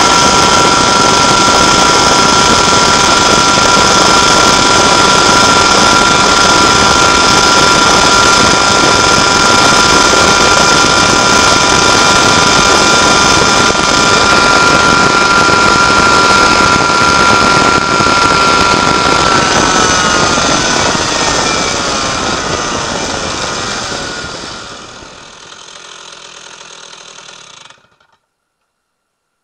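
West Bend 820 two-stroke kart engine running flat out at a steady high pitch at top speed, near 12,000 rpm. About two-thirds of the way in the pitch falls as it winds down off the throttle, fading to a faint sound, then cutting off to silence near the end.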